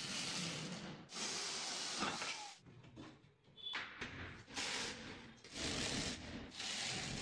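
Cordless drill running in short bursts of about a second each with brief pauses between, boring into plywood cabinet panels.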